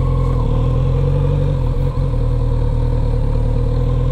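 Kawasaki Z900RS inline-four engine running at low revs as the motorcycle rolls along slowly, with a brief dip about two seconds in.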